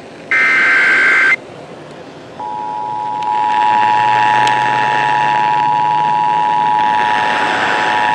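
Emergency Alert System broadcast signals. First comes the last SAME header data burst, a harsh warbling digital screech lasting about a second. After a brief pause, the EAS two-tone attention signal starts about two seconds in and holds steady, announcing an incoming emergency alert.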